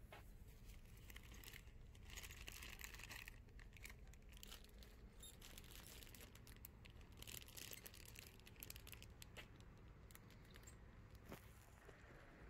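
Faint crinkling and crackling with scattered small clicks, loudest in two stretches, about two seconds in and again about seven seconds in, over near silence.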